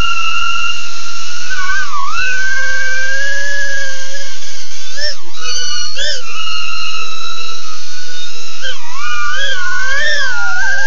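BetaFPV Aquila16 FPV quadcopter in flight: a high-pitched whine from its brushless motors, steady for stretches, that swoops down and back up as the throttle is cut and punched. It does this about two seconds in, twice around five to six seconds, and several times in quick succession near the end.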